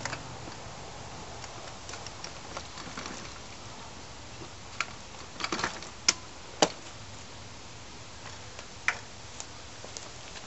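Scattered metallic clicks and clacks as a rear wheel is unlatched and pulled off the stroller's snap-off axle, with a quick run of sharp clicks between about five and seven seconds in and one more near nine seconds.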